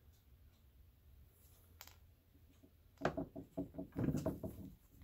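Lightsaber hilt being handled: a single soft click about two seconds in, then a quick run of rattling from a loose part inside the hilt as it is tipped and shaken, which the owner takes for the speaker moving around inside.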